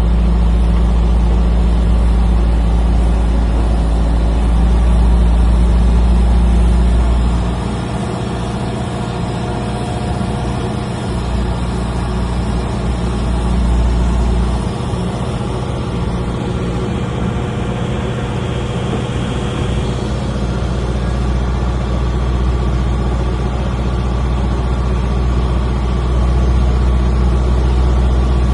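Embraer E2 jet airliner during pushback: a steady low rumble with several steady tones over it, including the moaning "whale sound" this jet makes on pushback.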